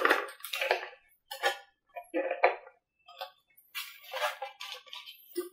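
Hands working a motor and its wiring into a foam model airframe: irregular short scrapes, rubs and clicks with brief pauses between them.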